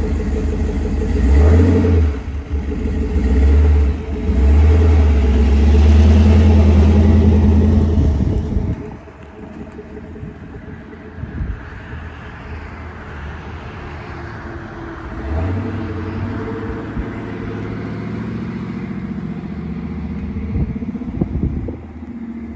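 LS3 6.2-litre V8 in a Factory Five '35 hot-rod truck revving and pulling away, loud for the first eight seconds or so, then dropping off sharply as the truck moves away. Its engine note swells again, farther off, a little past halfway.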